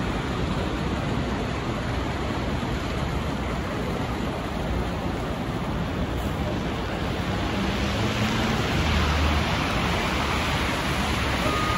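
MTA city bus approaching and pulling in to a stop over a wet, slushy street: a steady hiss of tyres on slush and wet pavement, with the bus's low engine rumble growing louder about eight seconds in as it reaches the stop.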